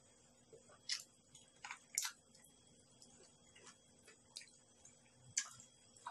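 Mouth sounds of a person eating rice and stir-fried clams: short, irregular clicks and smacks of chewing, the sharpest about two seconds in.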